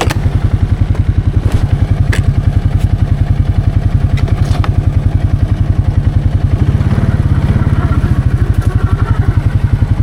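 Can-Am Outlander 700 XMR ATV's single-cylinder engine idling with an even, rapid pulse, the note shifting briefly about seven seconds in. A few light clicks over it.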